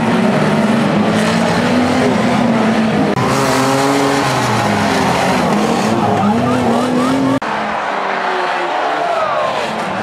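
Banger-racing cars' engines revving, the pitch rising and falling, over tyre and dirt-track noise. The sound changes abruptly about three seconds in and again about seven seconds in.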